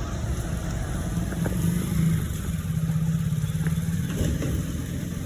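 Motor scooter's small engine running with a steady hum that rises slightly in pitch about a second in and then holds.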